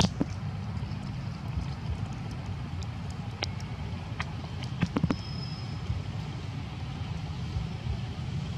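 Steady low outdoor rumble with a few sharp clicks scattered through it, the loudest cluster about five seconds in, and a faint high whistle just after.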